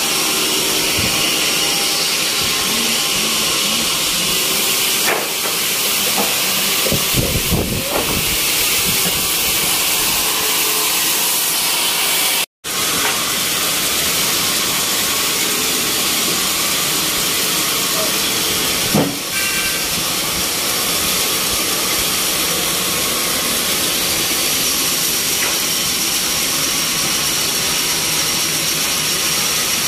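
Sawmill machinery running steadily, heard as a loud, even hiss. A few knocks come about seven to eight seconds in, and a single thump about nineteen seconds in.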